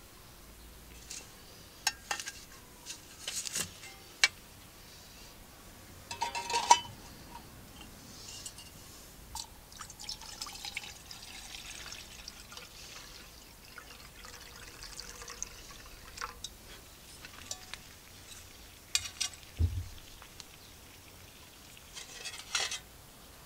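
Metal clanks and knocks of a Swedish M40 stainless-steel mess tin and its stove stand being handled; the loudest clatter comes about six seconds in. After that, water is poured from a vacuum flask into the mess tin for several seconds, and a few more clinks follow near the end.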